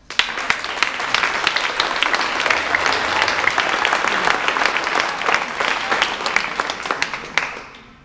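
Audience applauding, a dense patter of many hands clapping that starts abruptly and dies away near the end.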